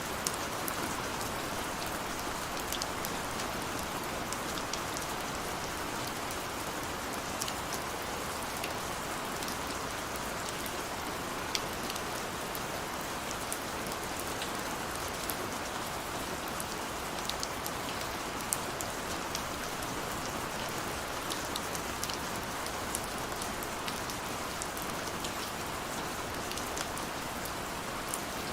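Steady rain, an even hiss with many scattered close drop taps and ticks sprinkled through it.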